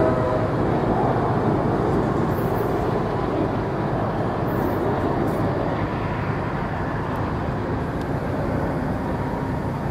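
Wheel-on-rail noise of a Metra bilevel commuter train moving away along the track, a steady rushing rumble that slowly fades.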